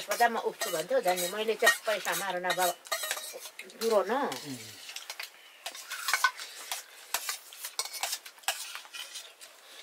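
Spoons scraping and clinking against steel dinner plates as people eat. A person talks for the first couple of seconds, and a voice sounds again briefly about four seconds in.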